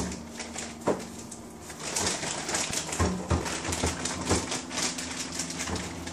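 Rustling and crinkling of packing material as it is pulled off a steel RC roll cage, with a few light knocks of the part and packaging on the workbench.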